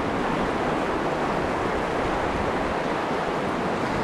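Fast-flowing mountain river rushing over rocky rapids: a steady, even wash of whitewater.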